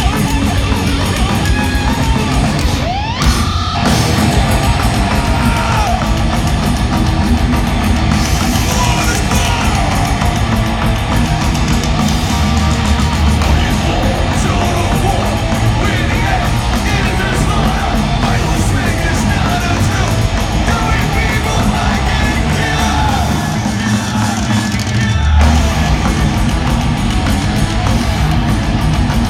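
Live rock band playing loud, with drums and shouted vocals over the music.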